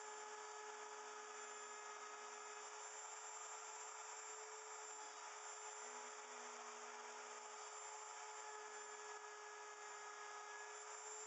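Electric wood router running steadily at an even pitch, a constant motor tone over a wide hiss with no change in load.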